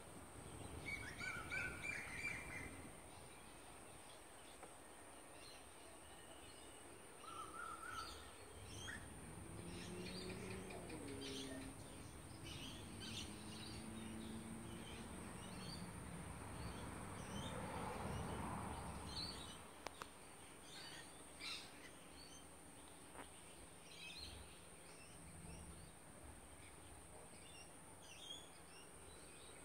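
Birds chirping and calling on and off, mostly short high chirps, with a brief run of calls about two seconds in and a few low sliding calls around the middle. A steady faint high whine runs underneath. There is no kookaburra laughing chorus.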